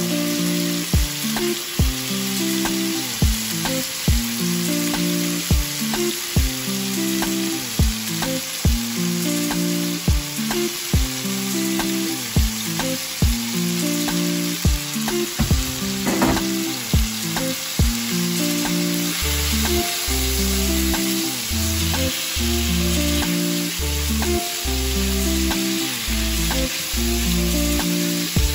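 Cajun-spiced chicken thighs shallow-frying in olive oil in a pan, a steady sizzle. Background music with a regular beat plays over it, and a heavier bass line comes in about two-thirds of the way through.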